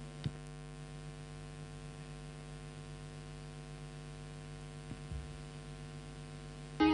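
Steady electrical mains hum in the gap between tracks of a music recording, with a single sharp click about a quarter of a second in.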